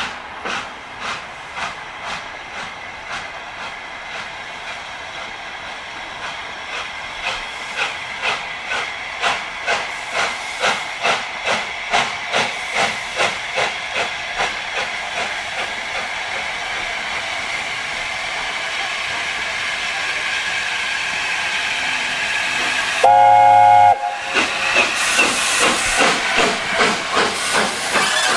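Steam locomotive working past, its chuffs about two a second and growing steadily louder as it comes closer. About twenty-three seconds in, a short whistle blast lasting about a second, followed by loud exhaust beats and hissing steam.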